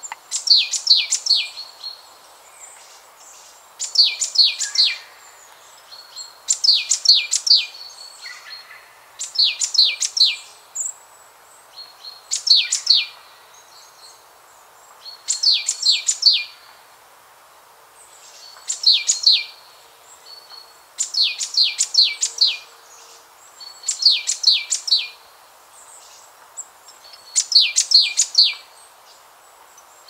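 A songbird singing the same short phrase over and over, a quick run of sharp high notes lasting about a second, repeated every two to three seconds, over a faint steady background hiss.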